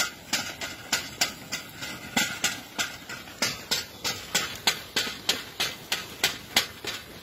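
A pair of bullocks pulling a mulch-film laying implement: a steady run of sharp clicks, about three a second, from the walking team and the moving rig.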